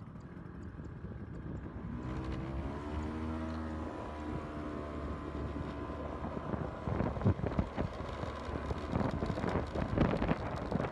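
Motorcycle engine pulling away, its pitch rising for a couple of seconds. Gusty wind noise on the microphone builds and takes over in the second half as speed picks up.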